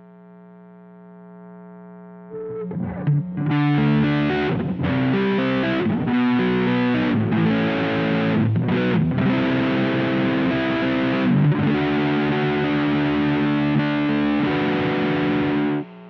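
Electric guitar played through an Electro-Harmonix Nano Big Muff Pi fuzz pedal: after about two seconds of low steady hum, a heavily fuzzed riff of chords and notes with a few short stops, cutting off suddenly near the end.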